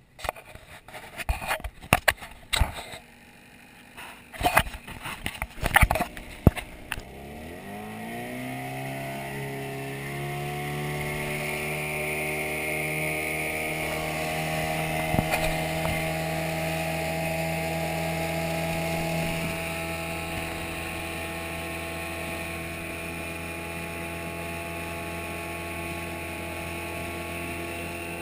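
A handful of sharp knocks and bumps, then a Mariner 15 hp outboard motor throttles up, its pitch rising over about three seconds, and runs steadily at cruising speed with the hull on plane.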